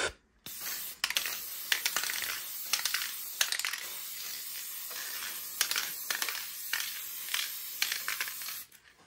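Krylon workable fixative aerosol can spraying: a steady hiss that starts about half a second in and stops near the end, with small clicks and ticks throughout.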